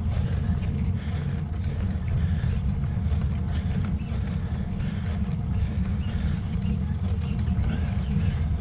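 Steady low rumble of wind buffeting and road noise on a moving camera's microphone.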